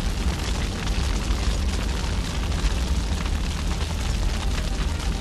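Dramatic sound effect: a deep, steady rumbling roar with dense crackling over it, like a great fire or explosion.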